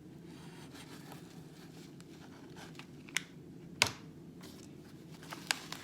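Quiet handling of a paper cover and a foil chip bag as the cover is glued down, with two sharp clicks a little past three seconds and near four seconds, over a steady low hum.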